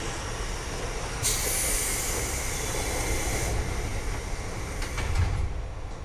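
Pneumatic sliding doors of a JR 201 series commuter car closing: a hiss of compressed air for about two seconds, then a thud as the door leaves shut about five seconds in, over the stationary train's steady low hum.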